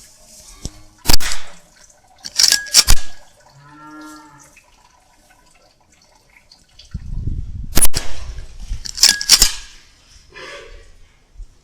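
Several sharp cracks from a Weihrauch HW100 .22 pre-charged pneumatic air rifle shooting at rats, spread across the stretch with two close together about two and a half seconds in.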